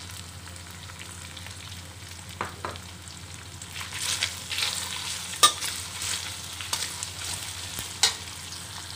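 Pork and garlic sizzling in a stainless-steel wok while a metal spatula stirs them, the spatula clicking and scraping against the pan several times, sharpest about five and a half seconds in and again near eight seconds.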